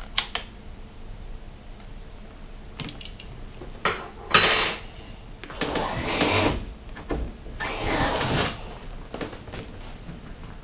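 Hands and tools working on a motorcycle handlebar: a few light clicks, a loud metallic clink about four seconds in, then two longer scraping, rustling swells.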